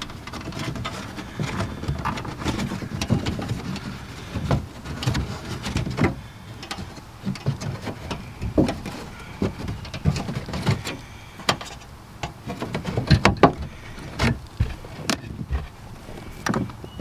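Hands tucking a cable behind a car's trunk carpet lining and trim: irregular rustling and scraping with scattered small knocks and clicks.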